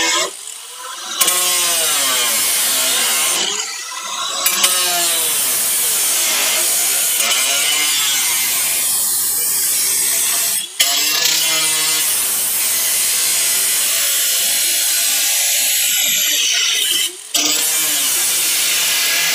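Handheld cutoff wheel grinding through the sheet-steel rear quarter panel of a 1957 Chevy 210, throwing sparks. The cut is broken by a few brief dips, the longest near the start and around four seconds in, with the pitch sweeping as the wheel comes back up to speed.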